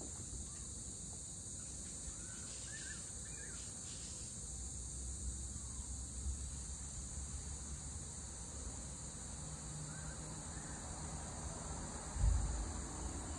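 Steady high-pitched evening insect chorus, with a few short bird chirps a couple of seconds in. A low thud near the end is the loudest sound.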